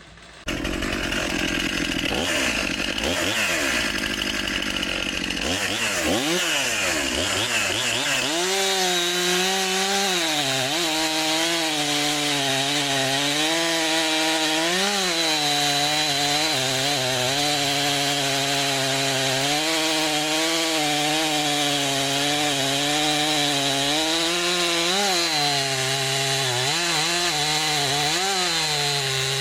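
Two-stroke chainsaw running at high revs and cutting wood with a freshly filed chain. The engine note dips and recovers slightly as the chain loads in the cut.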